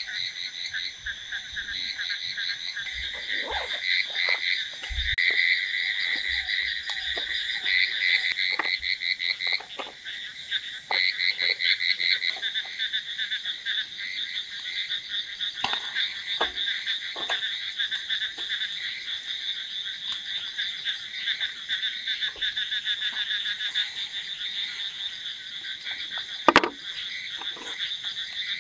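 A chorus of frogs calling: rapid trains of pulsed croaks that overlap and carry on without a break. Scattered light clicks and knocks of tongs and utensils at a charcoal grill, with one sharper knock near the end.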